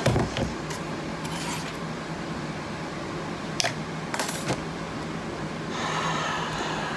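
Handling a household steam iron and fabric on a table: a sharp clack at the start as the iron is set down or knocked on the hard surface, a few lighter clicks, and fabric rustling near the end, over a faint steady hum.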